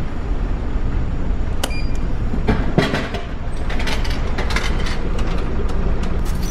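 A drinks vending machine dispensing a can of coffee: a click about a second and a half in, then a clatter of knocks as the can drops down to the pickup tray, and a sharp clack near the end. The steady low hum of the ferry's engines runs underneath.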